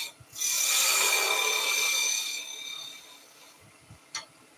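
Skew chisel shearing a small chamfer into a spinning tulipwood spindle on a wood lathe: a hissing cut that starts a moment in and fades out about two and a half seconds in. A single small click near the end.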